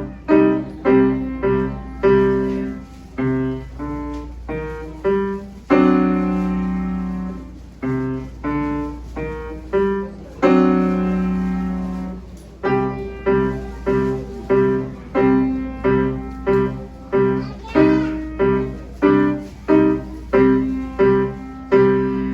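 Acoustic piano playing a simple piece in detached notes, about two a second, with two longer held chords around six and eleven seconds in. A low steady hum lies underneath.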